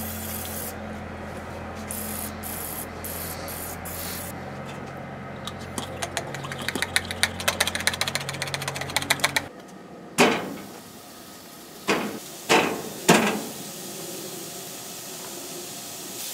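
A pump oil sprayer clicking rapidly for several seconds over a low hum. Then four loud, sudden hits, each trailing off in a brief sizzle, as raw burger patties are laid on the hot grill grate.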